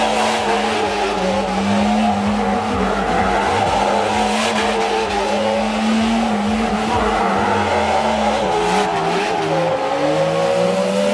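Side-by-side UTV engine held at high, steady revs while it spins donuts on loose dirt, with the tyres spinning and scrabbling; the revs waver and change near the end.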